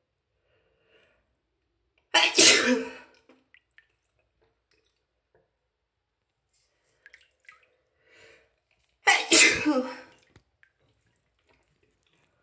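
A woman sneezing twice, about seven seconds apart, each a sudden loud burst with a short tail: a sneezing attack brought on by a head cold.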